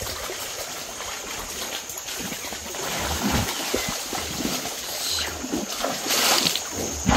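Water splashing and sloshing as cattle wade and swim across a flooded creek, with a louder splash about six seconds in.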